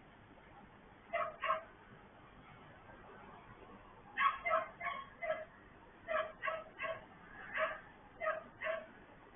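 A dog barking: about a dozen short barks in runs of two to five, heard through a surveillance camera's limited-bandwidth microphone.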